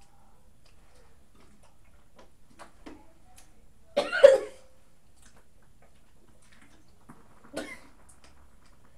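A child coughing, one short harsh burst about four seconds in, with a smaller one about seven and a half seconds in.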